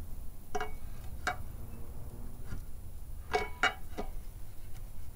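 Sharp metallic clicks and taps, about six in a few seconds, some with a brief ring, as a steel clutch pressure plate is set against the flywheel over the friction disc and shifted by hand.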